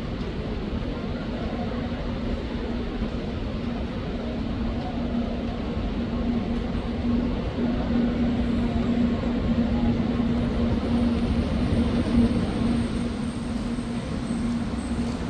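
Shinkansen bullet train running at a station platform: a steady rumble with a held low hum that grows slightly louder, and a faint high whine that comes in about halfway through.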